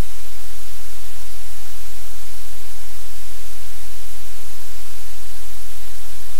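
Steady, loud static hiss with a low hum underneath, unchanging throughout.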